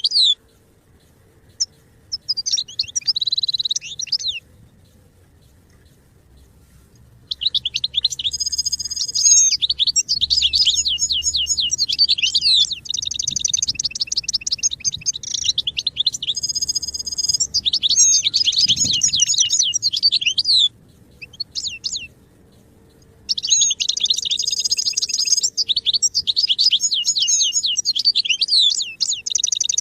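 European goldfinch singing: a short phrase, then long runs of rapid, high twittering and trilling notes, broken by pauses of a couple of seconds.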